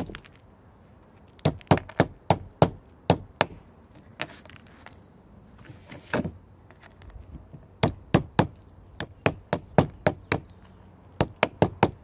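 Piece of milky quartz striking a quahog shell against a granite rock, chipping the shell to break off its purple part: sharp knocks in quick runs of several strikes, with a few lighter taps in between.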